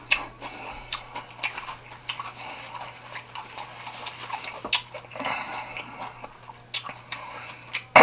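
A person chewing food close to the microphone: irregular wet mouth smacks and clicks, over a faint steady low hum.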